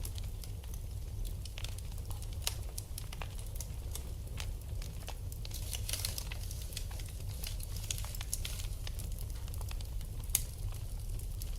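Wood fire in a fireplace crackling: frequent sharp pops and snaps over a low steady rumble, with one louder pop near the end.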